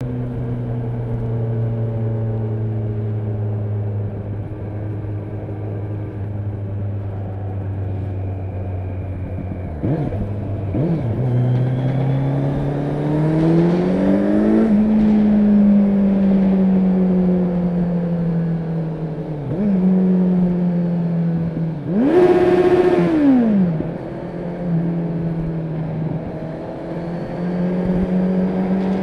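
Kawasaki Z900 inline-four engine with an aftermarket exhaust, ridden on the road: steady cruising note, then a couple of quick throttle blips, a climb in pitch under acceleration and a gear change, and a slow easing off. About 22 seconds in, a loud rev up and back down with a rush of noise, then the pitch climbs again near the end.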